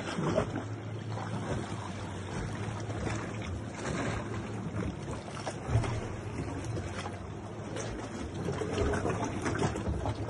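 Sea water splashing and lapping irregularly against a sea kayak's hull, with a few louder splashes about half a second in and near the middle.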